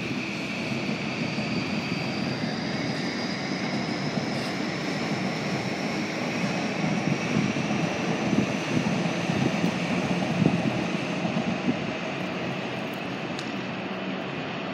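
Electric commuter train running on elevated tracks: a steady rumble of wheels on rail, with a motor whine whose pitch rises slowly as the train gathers speed.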